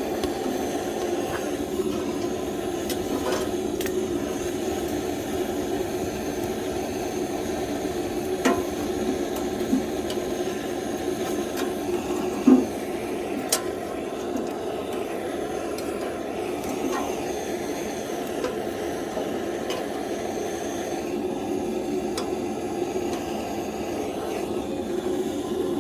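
Fire being lit in a camping wood stove: a steady rushing of flame with scattered sharp crackles and knocks, the loudest about twelve seconds in.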